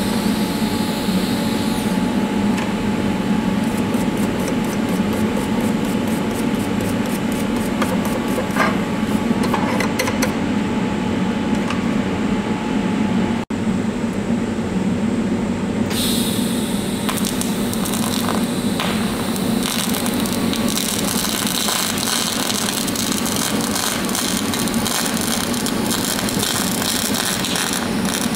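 TIG welding arc on brass plate: a steady hiss and hum as filler wire is fed into the puddle, dropping out for an instant about halfway through.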